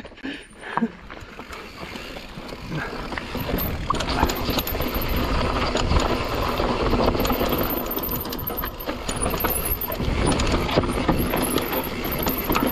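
Mountain bike riding fast down a rough dirt and rock trail: tyre noise and wind on the microphone, with constant clattering rattles from the bike over the bumps. It builds over the first few seconds as the speed picks up.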